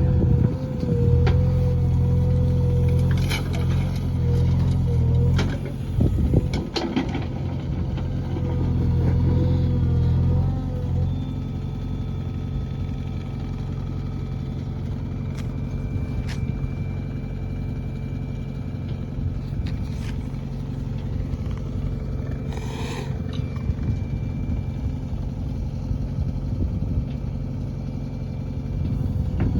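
JCB backhoe loader's diesel engine running, loud with a wavering whine and a few knocks for about the first ten seconds, then dropping to a quieter steady run. A short hiss comes a little after the middle.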